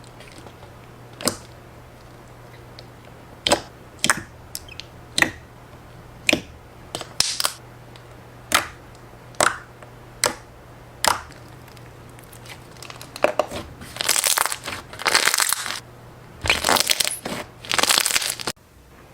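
Thick, glossy slime being pressed and played with by hand, making sharp separate pops about once a second. Later come longer, denser runs of crackling that stop abruptly near the end.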